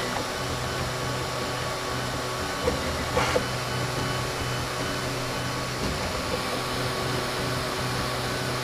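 Flsun i3 3D printer running mid-print: a steady mechanical whir and hum from its fans and motors as the hotend moves over the part, with a couple of faint clicks about three seconds in.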